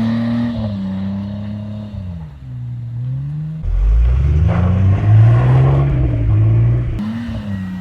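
BMW M20B25 2.5-litre straight-six engine and exhaust revving: held at high revs, falling away about two seconds in, then with a sudden jump climbing and holding high again before dropping back near the end.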